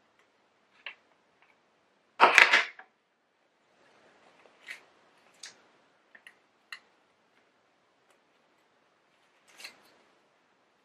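Plastic pompom maker handled as its arms are opened and the wool pompom is pulled off: one louder handling noise about two seconds in, then a few light plastic clicks.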